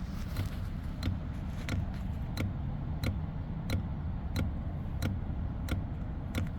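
A steady, regular clicking from a parked 2014 Nissan 370Z that is switched off, about three clicks every two seconds, over a low rumble. It is something in the car cycling constantly with the engine off, which the mechanic suspects is draining the battery and keeping the car from starting.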